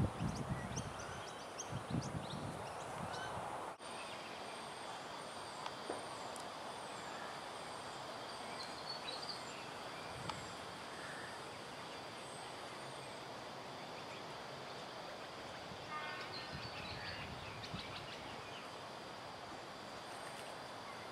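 Steady outdoor background hiss and hum by a river, with scattered small bird chirps and a short run of rapid bird calls about sixteen seconds in.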